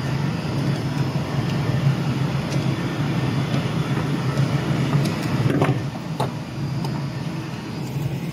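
Steady low hum and rumble of workshop machinery, with a few faint clicks of hand tools on the metal stud welding gun about halfway through.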